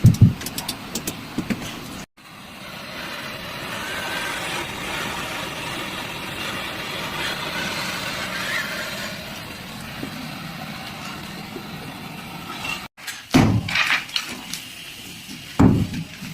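Steady rushing hiss of nitrogen gas blown through air-conditioner refrigerant lines during flushing. It is framed by clicks and knocks from handling the fittings, and it cuts off abruptly near the end.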